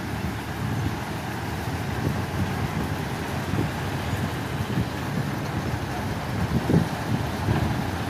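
Diesel engines of heavy earthmoving machines, excavators and dump trucks, running steadily as a low rumble, with a few short louder surges near the end.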